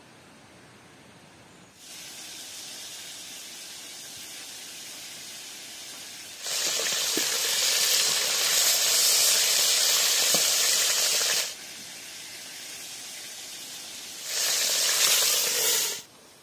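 Chicken pieces frying in hot oil in a frying pan, a steady sizzle starting about two seconds in. It flares much louder for about five seconds while the pieces are turned with a fork, then again briefly near the end.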